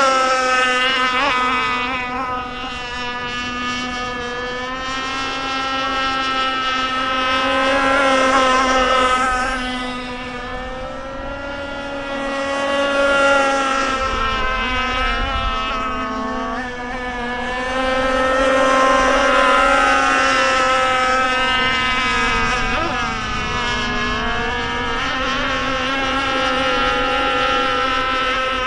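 51-inch Micro Burst RC boat's motor running at speed, a steady high-pitched drone. It dips in pitch briefly a few times, and its loudness swells and fades as the boat passes back and forth.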